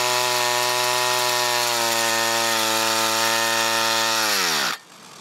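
Two-stroke string trimmer engine running steadily on straight gasoline with no oil. Its pitch sags a little, then falls sharply and the engine stops dead near the end as the unlubricated piston seizes in the cylinder.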